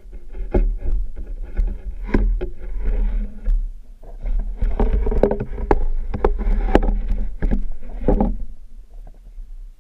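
Muffled knocks and clicks over a steady low rumble, heard through a camera submerged under the ice; the knocking comes in quick irregular runs and dies away near the end.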